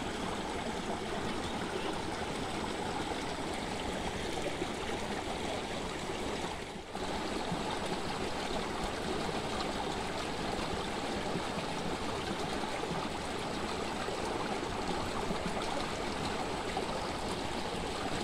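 Small muddy stream rushing and splashing over a little drop: a steady rush of running water, with a brief dip about seven seconds in.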